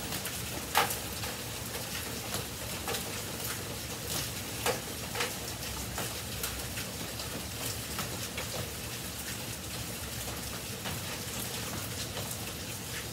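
Steady rain, with scattered sharp taps throughout; the loudest comes about a second in.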